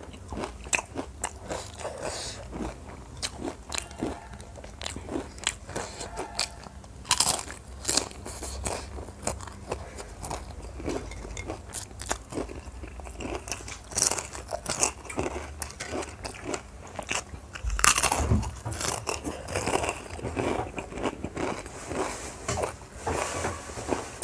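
Close-miked eating: a person biting, crunching and chewing street food in a run of short, irregular crunches and wet chewing clicks. One louder bump comes about two-thirds of the way through.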